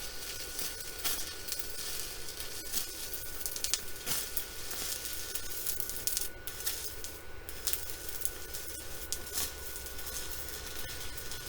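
Stick-welding arc from an inverter welder, a steady crackling sizzle with scattered sharper pops as the rod burns onto the steel of a mower deck.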